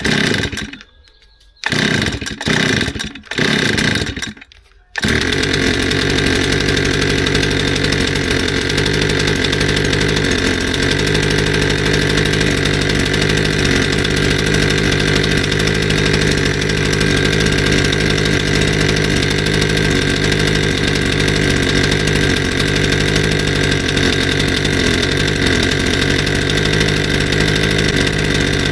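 Stihl FS160 brushcutter's two-stroke engine starting: it fires in four short bursts that die away, then catches about five seconds in and runs steadily. The freshly serviced engine, which would not start on stale fuel, is running again.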